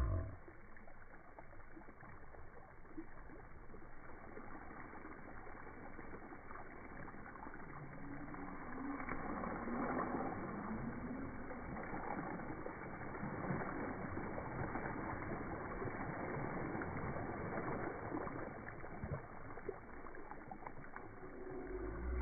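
Slowed-down slow-motion audio: a deep, steady rushing wash of water splashing on a plastic water slide, with low, drawn-out voice-like sounds about halfway through.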